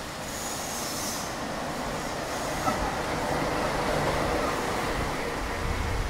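City bus driving past, its engine and tyre noise growing louder to a peak about four seconds in, over steady street traffic.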